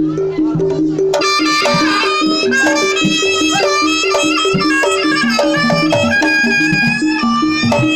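Traditional East Javanese jaranan music: a steady, repeating two-note figure in the low register, with a loud, reedy wind-instrument melody, typical of the slompret (Javanese shawm), coming in about a second in and bending between notes.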